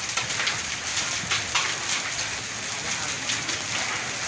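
Heavy rain mixed with hail: a dense, steady hiss of downpour with frequent sharp ticks of hailstones striking the ground and nearby surfaces.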